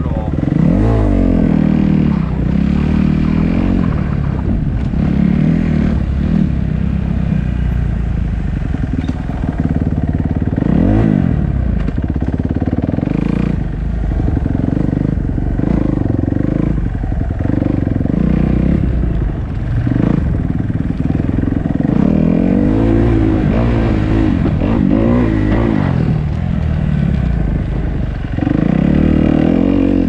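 Off-road motorcycle engine being ridden along a dirt trail, its pitch rising and falling over and over as the throttle is opened and closed.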